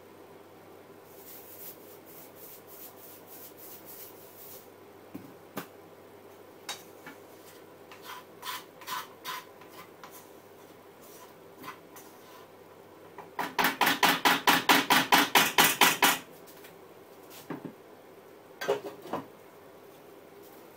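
A cooking utensil stirring and scraping in a frying pan: light scattered clicks, then a loud fast run of about ten strokes a second for around three seconds. Near the end come a couple of knocks as a glass lid is set on the pan.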